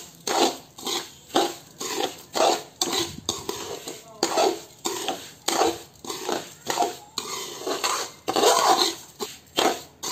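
Perforated metal spatula scraping and stirring roasted semolina and sugar around a metal kadhai, in quick repeated strokes about two a second.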